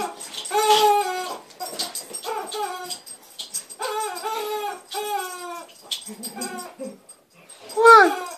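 Rubber chicken toy squawking again and again as a dog bites and squeezes it: about six drawn-out squeals that sag in pitch, the loudest a falling squawk near the end.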